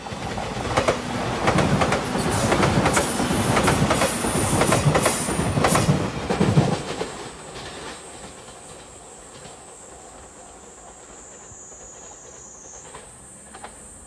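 JR Shikoku 8000 series electric limited express train passing close by at speed, its wheels clicking over the rail joints. It is loud for about seven seconds, then drops to a faint distant rumble.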